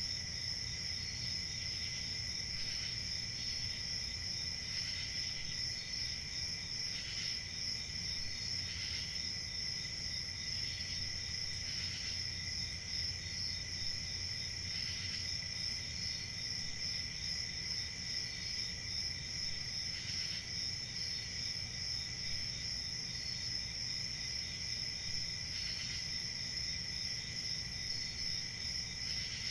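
A chorus of crickets chirping: a steady, unbroken high trill, with short chirps repeating over it about once a second and a faint low rumble beneath.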